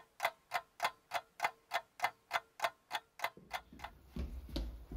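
A clock ticking, about four even ticks a second, stopping about three and a half seconds in.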